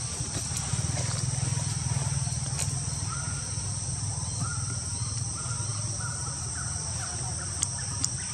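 Forest ambience: a steady high-pitched insect drone, over a low steady hum. Several short, faint pitched calls come in the middle, and two sharp clicks near the end.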